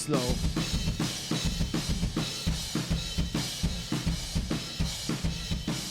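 Recorded drum kit track, kick, snare and cymbals playing a steady, fast beat. It is processed through the Lindell 254e compressor plugin working as a limiter on its slow setting, so the hits sit at an even, squashed level.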